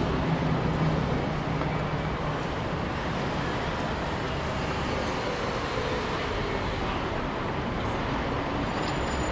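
Busy city street traffic: a steady rumble of passing cars and buses, with an engine hum low down in the first second or so.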